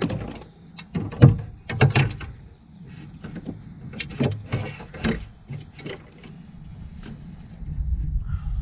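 Irregular knocks and clatter of a largemouth bass and a plastic fish-measuring board being handled on a kayak, with a low rumble near the end.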